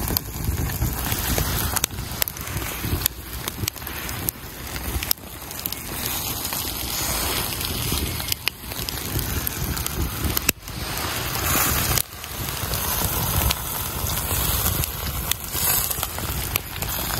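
Wood fire crackling as split logs burn in a metal fire pit, over a steady rushing outdoor noise. The sound breaks off sharply a few times.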